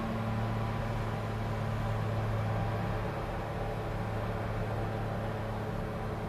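Volvo L60E wheel loader's six-cylinder diesel engine running steadily under load as the loader reverses up a maize silage clamp to compact it, the sound easing slightly as it climbs away.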